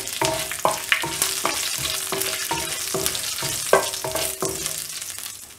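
Cumin seeds, dried red chillies and mustard seeds sizzling in hot oil in an enamel kadai, stirred with a wooden spoon that taps against the pan about twice a second, each tap with a short ring.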